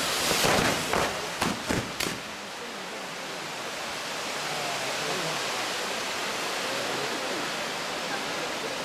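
Maltese ground-firework wheel (nar tal-art) spinning with its fountains burning: a steady, loud rushing hiss of spraying sparks. Several sharp cracks sound in the first two seconds.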